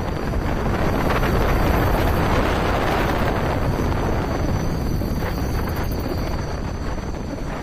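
Wind buffeting the microphone over the steady rumble of a vehicle driving at speed.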